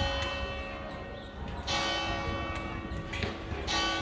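Church bell tolling, struck about every two seconds, each stroke ringing on and fading slowly into the next.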